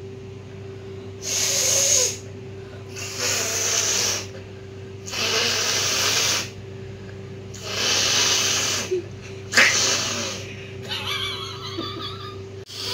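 A woman with a heavy head cold blowing her congested nose hard, again and again: about five noisy blasts, each roughly a second long. About ten seconds in comes a sharper, sudden burst like a sneeze, and then a wavering nasal sound near the end.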